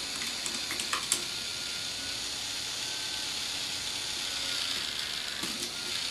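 A K'nex toy motor whirring steadily as it drives the teeter totter's crank wheel and plastic gears, with a few sharp plastic clicks, while a plastic ball rolls along the rod track.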